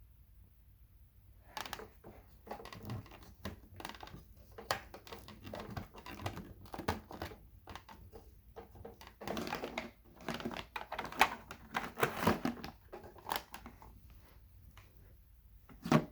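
Irregular plastic clicks, knocks and rustling from an Electrolux Discovery II upright vacuum being handled while switched off, busiest about two-thirds of the way in, with one sharp knock near the end.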